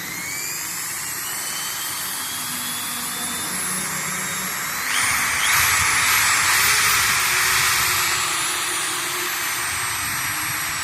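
Electric drill's motor running at speed with a steady high whine, having just spun up. About five seconds in it gets louder and rougher, its pitch wavering, for about three seconds, then it settles back to a steady run.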